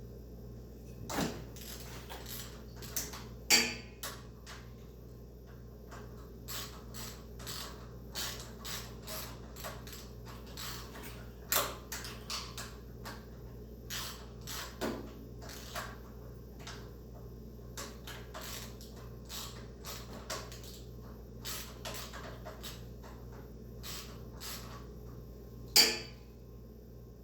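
Socket wrench clicking and clinking on the drain plug of a pressure washer pump as the plug is worked loose, with irregular small metal knocks and two louder ones, a few seconds in and near the end, over a steady low hum.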